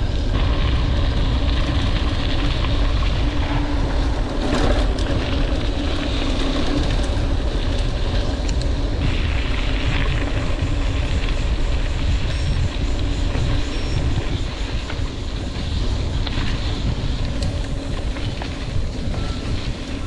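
Steady wind rumble on the microphone of a camera riding along on a moving bicycle, with road noise underneath.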